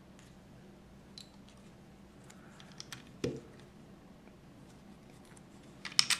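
LEGO plastic bricks handled and pressed together: a few faint clicks, a soft knock about three seconds in, then a quick cluster of sharp clicks near the end as pieces snap onto the model car.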